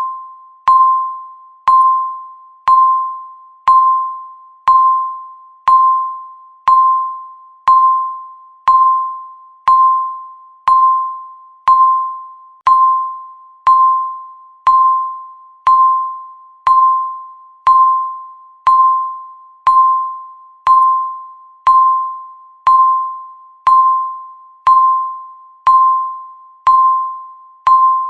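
Countdown timer's tick sound effect: a sharp, ringing tone struck once a second, each one fading away just before the next, marking the passing seconds.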